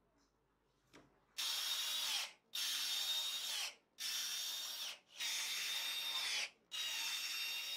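Cordless drill run in five short bursts of about a second each, working a bit through the fibreglass backing of a flap disc into a wooden block; the motor whine dips as some runs end under load. A faint knock comes just before the first run.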